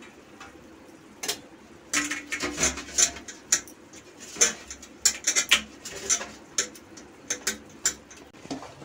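A hand rubbing ghee around the inside of a stainless-steel plate: an irregular run of quick clinks, taps and short squeaks of skin and metal against the steel, starting about a second in.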